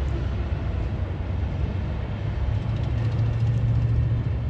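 Heavy truck engine idling: a steady low rumble that swells slightly about three seconds in.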